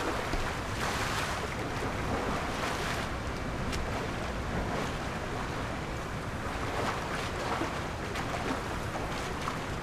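Young Asian elephant splashing in a pool, swishing its trunk through the water and wading: irregular splashes and sloshing water, the loudest splash right at the start.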